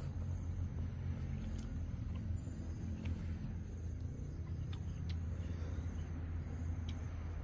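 A steady low rumble in the background, with a few faint, short clicks of someone eating with their fingers and chewing.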